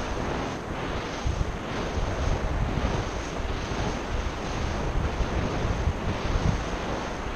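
Surf breaking and washing up a sandy beach, with steady wind buffeting the microphone as a low rumble.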